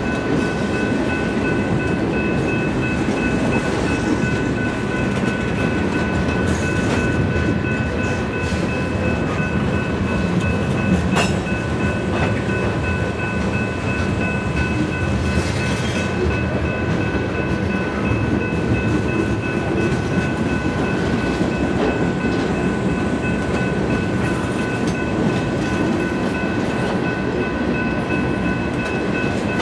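Freight train cars rolling past, with a steady rumble of steel wheels on the rails. Several thin high tones are held steadily above the rumble.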